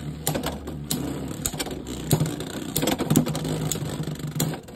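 Two Beyblade X spinning tops, Helm Knight and Tail Viper, whirring steadily as they spin in a plastic Beyblade X stadium mid-battle. Irregular sharp clacks come through it as they hit each other and the stadium.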